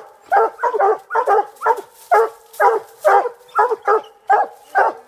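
Coonhound barking rapidly and steadily, about three barks a second, often in quick pairs, as it bays up at a tree.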